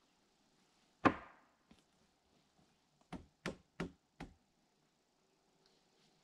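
Hammer blows on 2x lumber framing: one heavy strike about a second in, then four quicker strikes, about three a second, a couple of seconds later.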